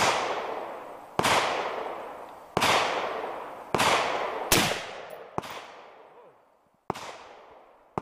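AR-15 rifle fired in a string of single shots, about one every second or so. Each crack is followed by a long fading echo.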